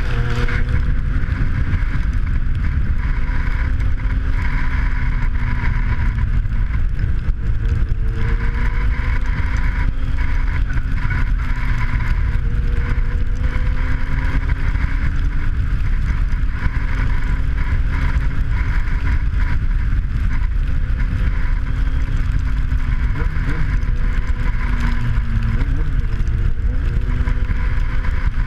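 Kawasaki Z750's inline-four engine running as the motorcycle is ridden, its pitch rising and falling gently with the throttle, under heavy wind noise on the microphone.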